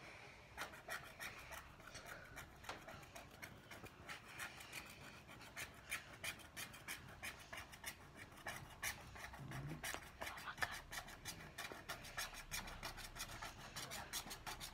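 Wooden stylus scratching the black coating off rainbow scratch-art paper in quick short back-and-forth strokes, a dry, faint scraping several strokes a second.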